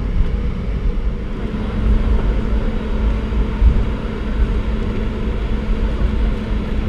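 Cabin noise inside a Boeing 717-200 taxiing after landing: the steady drone of its rear-mounted Rolls-Royce BR715 turbofans at low power over a low rumble, with a steady hum.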